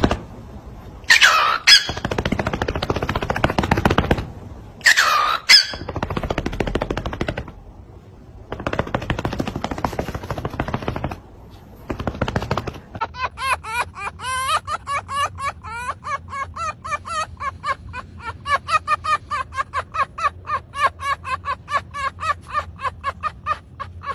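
Cockatiel vocalising: harsh rattling noise in bursts, broken by two loud whistles about one and five seconds in. From about halfway it turns to a fast, even run of short chirps, about four a second.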